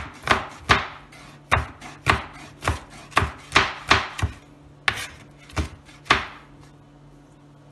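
Kitchen knife chopping bell pepper on a plastic cutting board: a series of sharp knocks of the blade on the board, irregular at about two a second, stopping about six seconds in.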